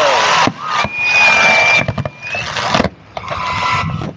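Fireworks: volleys of rising comets hissing in long rushes, with a steady whistle of about a second and a half near the middle that turns up in pitch at its end, and a few sharp bangs of bursting shells.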